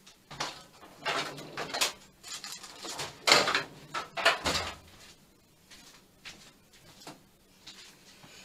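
Someone rummaging through craft supplies off to the side: a run of rustles, clatter and knocks as things are moved and picked up for about five seconds, the loudest knocks near the middle, then a few faint clicks.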